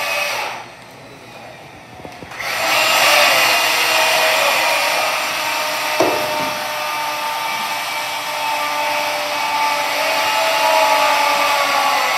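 Battery-powered electric chainsaw cutting into a block of ice: a steady high motor whine with the chain chewing through the ice. It eases off about half a second in and comes back up about two seconds later, with one sharp knock about six seconds in.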